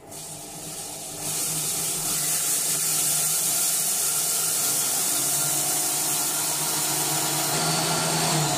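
Silvercrest Monsieur Cuisine Connect kitchen robot's blade spinning up from low speed and then running steadily at full speed, grinding chopped almonds into a fine powder. It jumps in loudness about a second in as the speed is turned up.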